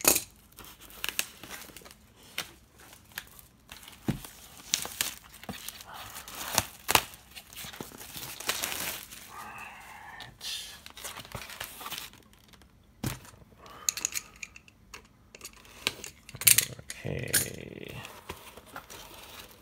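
Hands opening a sealed cardboard box: irregular tearing, crinkling and scraping of the cardboard and its packaging, with scattered sharp taps and clicks.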